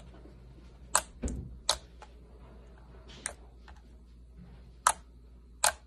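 Slime being squeezed and pressed, giving a handful of sharp, irregular clicking pops, one with a dull thud, as trapped air snaps out.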